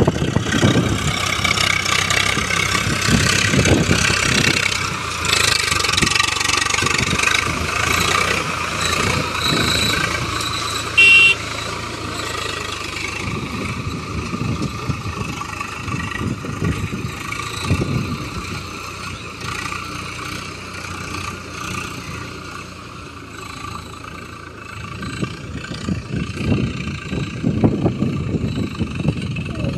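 Swaraj 744FE tractor's three-cylinder diesel engine running under load while pulling a cultivator through wet paddy-field mud. A brief loud high tone cuts in about eleven seconds in.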